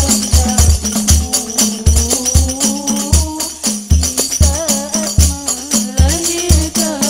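Hadroh ensemble playing: girls' voices sing a melody over a steady rhythm of rebana frame drums, deep bass-drum strokes and tambourine jingles.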